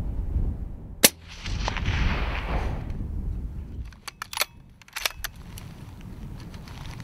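A single bolt-action rifle shot about a second in, its report rolling on for a second or two, then the bolt worked with a few sharp metallic clicks between about four and five seconds in.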